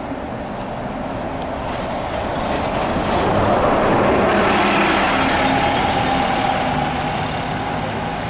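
City transit bus driving past close by: its engine and tyre noise build, peak as it passes about four seconds in, and ease off as it pulls away. A steady whine runs through the later seconds.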